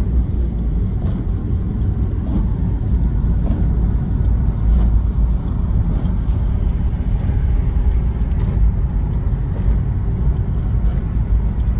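Steady low road rumble of a car being driven on a rain-soaked road, heard from inside the cabin.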